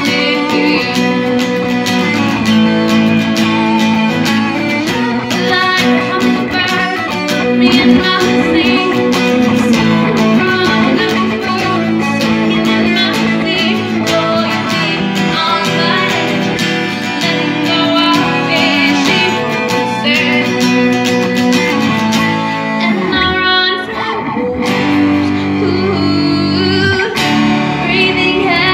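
Guitar-led band music, loud and continuous, with a brief break where the low end drops out about 23 seconds in.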